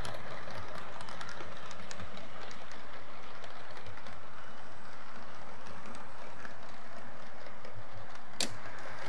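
00 gauge model HST running along the layout's track: a steady rolling rush of wheels and motor on the rails, with one sharp click near the end.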